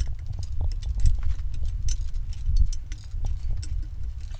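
Long-handled socket wrench loosening the main bearing girdle bolts on a Mitsubishi 4G63 engine block: irregular metallic clicks and clinks of socket, bar and bolts, over a low rumble.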